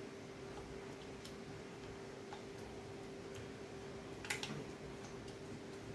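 Fingers working a wet marinade into raw fish pieces on a ceramic plate: faint irregular clicks and taps, one a little louder about four seconds in, over a steady faint hum.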